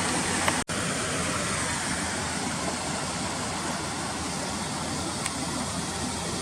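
Steady rushing of flowing water, broken by a split-second gap just under a second in.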